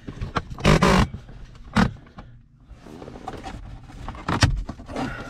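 Handling noise from a phone being set in place inside a car: a loud scraping rush near the start, then a few knocks and rubbing.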